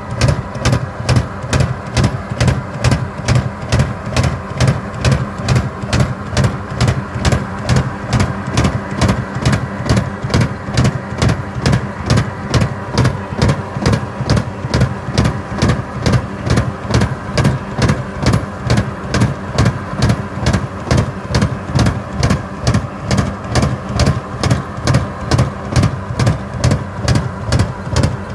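Farm tractor's diesel engine running steadily under load while driving a rear-mounted rotary mulcher through soil. A regular pulsing throb comes about twice a second.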